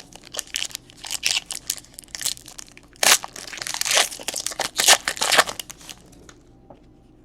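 Crinkly rustling and tearing of a trading-card pack wrapper being handled and crumpled, stopping about six seconds in.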